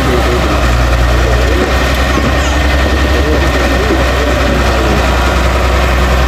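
Caterpillar E120 hydraulic excavator's diesel engine running steadily with a deep, even hum as the machine works soil.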